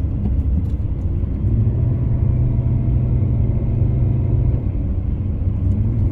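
Steady road and engine rumble inside the cabin of a moving car. The low drone shifts up slightly in pitch about a second and a half in.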